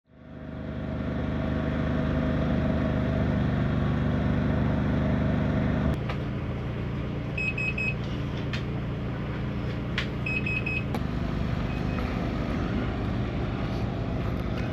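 Steady motor-vehicle engine and road traffic noise, with a change in the engine hum about six seconds in. Two short runs of quick, high electronic beeps sound about three seconds apart.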